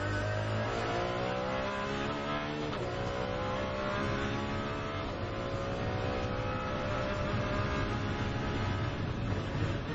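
Ferrari 599XX's V12 engine heard from inside the car under hard acceleration, rising in pitch through the gears, with a quick upshift drop about a quarter of the way in and another about halfway.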